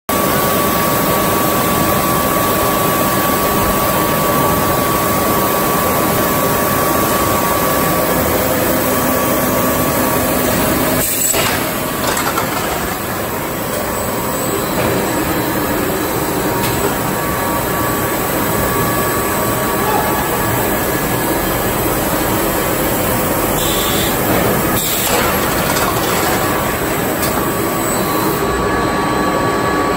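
A clay brick extrusion and cutting line running, with a steady, loud industrial din and a constant whine. Two brief knocks stand out, about eleven seconds in and again near twenty-five seconds.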